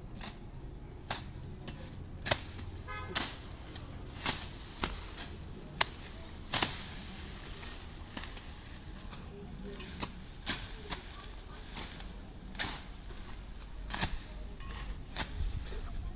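Hand tools striking vegetation and ground during land clearing: sharp chopping blows, one to two a second at an uneven pace.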